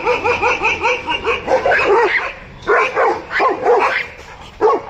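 Dog barking aggressively: a fast run of barks, about five a second, for the first second and a half, then slower single barks through the rest.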